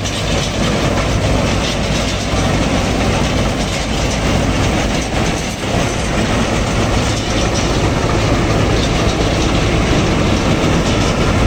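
Panesar G60s Crop Hunter combine harvester running close by while harvesting paddy: a steady, loud mechanical din from its engine and threshing machinery.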